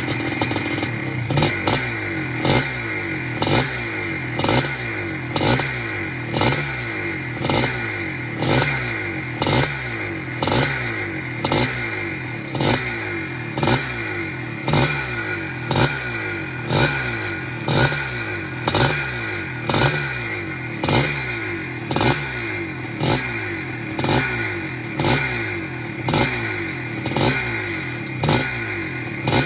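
1981 Maico 490 Mega 2's single-cylinder two-stroke engine revved in quick, regular throttle blips, about three every two seconds. Each blip rises in pitch and drops back toward idle.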